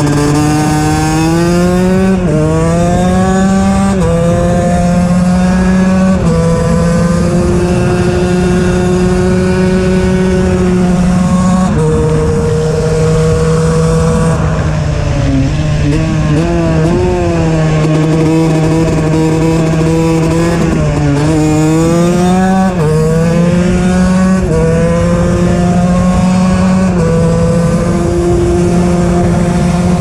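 KTM EXC 125 two-stroke single with an HGS exhaust under hard riding: the engine pitch climbs under full throttle and drops sharply at each upshift, three quick shifts in the first few seconds. It then holds a steady pitch, wavers off the throttle midway, and pulls up through the gears again with further shifts near the end.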